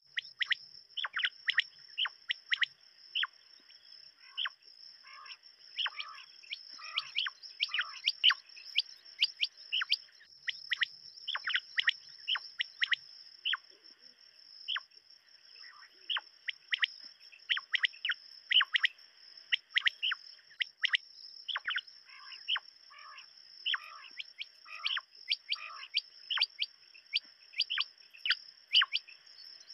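Quail calling: many short, sharp, falling chirps, often in quick groups of two or three, repeating irregularly, over a steady high-pitched whine.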